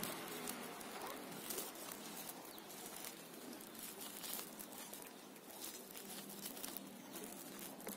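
Faint, irregular crinkling and crackling of a plastic grafting strip being wound and pulled tight around a stem, with leaves brushing against the hands.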